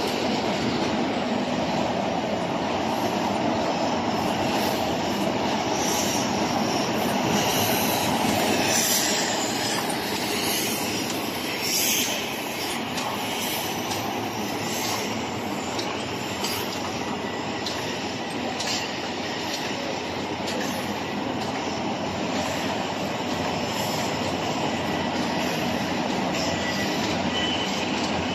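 Paper bag tuber and bottomer machines running steadily, a dense mechanical noise with scattered sharp clicks. A faint high whine comes in near the end.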